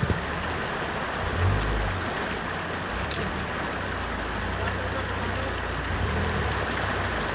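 Off-road 4x4 engine running at low revs, its low drone rising and easing a little, under a steady rush of wind or rolling noise.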